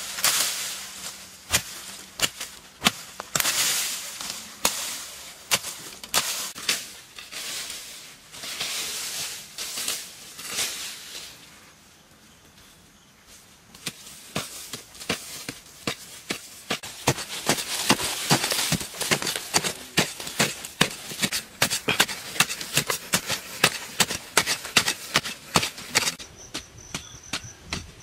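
Repeated sharp chops of a long-handled digging tool striking dry earth, with scraping and loose soil and clods rattling down. A short lull comes near the middle, after which the strikes come thicker and faster.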